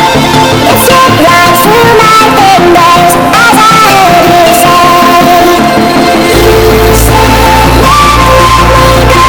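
Loud song with a singing voice over instruments; a heavy bass line comes in about six seconds in.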